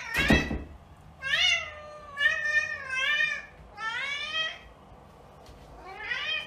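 A long-haired tabby cat meowing about five times, each meow short and bending in pitch, after a brief loud noisy burst right at the start.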